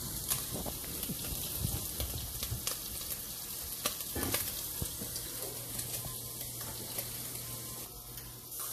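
Cut smoked sausage searing in a hot pan: a steady sizzle with scattered crackling pops as the fat renders out and the pieces caramelize.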